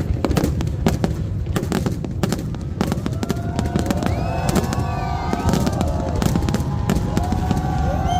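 Fireworks going off in a dense run of sharp bangs and crackles. From about three seconds in, several wavering, whistle-like tones rise and fall over the bangs.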